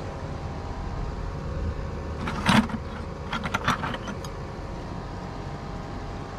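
Scrap metal clinking and rattling as a hand rummages through it in a plastic bucket: a short burst about two and a half seconds in, then several light clinks, over a steady low rumble.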